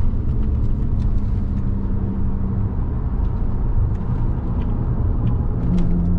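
Audi A6 3.2 FSI quattro's V6 engine and road rumble heard from inside the cabin at speed. The engine hum fades about halfway through and comes back stronger near the end.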